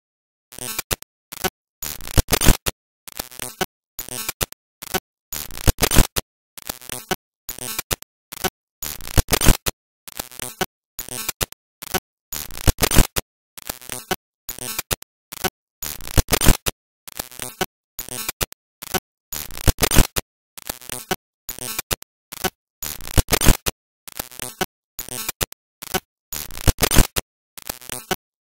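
Glitchy, corrupted audio: harsh bursts of static-like noise broken by abrupt silent dropouts, with louder peaks about every one and a half seconds.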